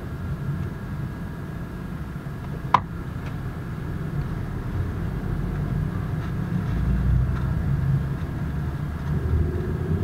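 Low, steady rumble of a vehicle engine and traffic, growing louder about seven seconds in, with a single sharp click about three seconds in.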